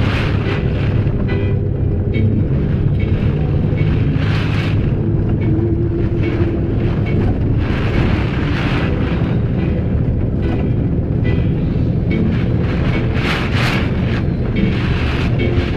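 Storm-force typhoon wind and driving rain: a loud, steady low rumble with rushing gusts surging about four seconds in, again around eight to nine seconds, and near the end.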